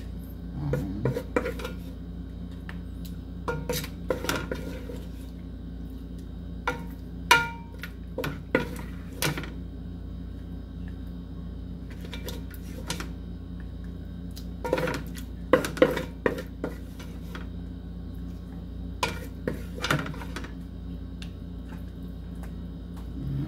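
Wooden spatula scraping and knocking against the inside of an aluminium cooking pot as thick lamb stew is scooped out: irregular clacks and scrapes, the sharpest knocks around a third of the way in and just past the middle, over a steady low hum.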